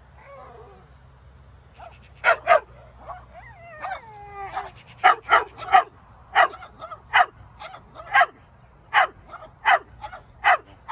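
Small black-and-white terrier barking in short, sharp, high yaps, mostly in quick pairs and threes, starting about two seconds in. Between the first barks it whines, with a wavering pitch that rises and falls.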